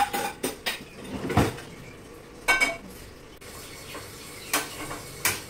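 Metal kitchen utensils and a pan clinking and knocking as they are handled: about six separate knocks and clinks, one a duller thud and one with a short metallic ring.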